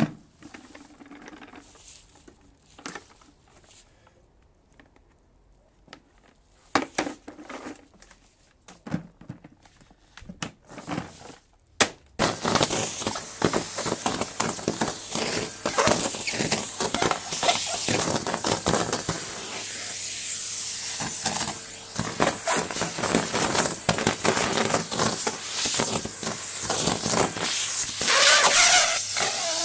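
Scattered light rustles and knocks, then about twelve seconds in a Numatic Henry 160 vacuum cleaner comes in suddenly with a loud, steady hiss. Crackling and clattering run through it as dry leaves are sucked up the hose.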